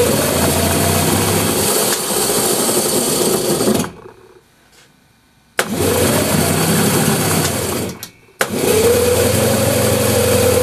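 Home-built eight-cylinder two-stroke engine made from Kawasaki KH250 crankcases, catching and running in three loud bursts, its pitch climbing at the start of each; it cuts out twice before catching again. It is reluctant to keep running until a hand held over the back of the carburettor pulls fuel through.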